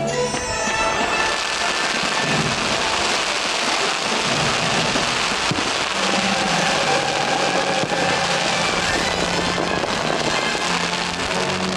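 Fireworks finale barrage: many shells bursting and crackling at once in a dense, continuous volley, with music faintly underneath from about halfway through.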